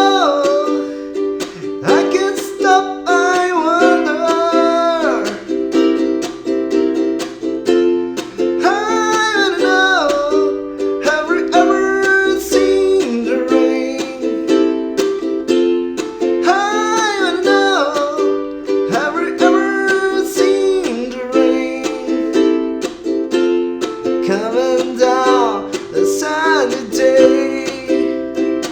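Ukulele strumming the song's chords in a steady rhythm, with a melody line bending over the chords.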